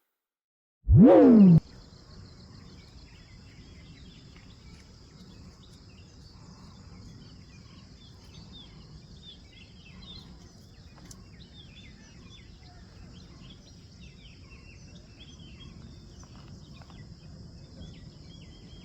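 Outdoor lakeside ambience: many birds chirping over a steady high insect drone and low background noise. About a second in, a short loud tone slides in pitch.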